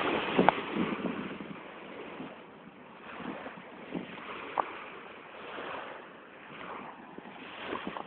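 Sea wash and wind buffeting the microphone, rising and falling, with a few short knocks.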